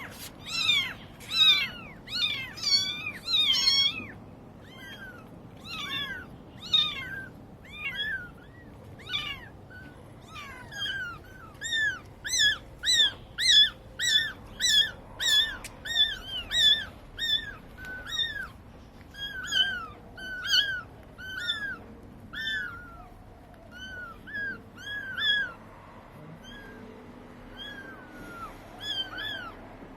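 Seagulls calling: a long series of short, high, arched calls, overlapping in the first few seconds, then a steady run of about one or two a second, thinning out toward the end.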